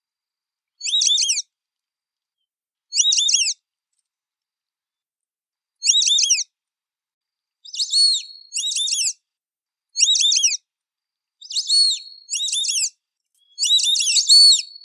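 White-faced whistling duck (irerê) giving its high whistled calls: short bursts of a few quick falling notes, spaced out at first, then coming closer together and overlapping in the second half.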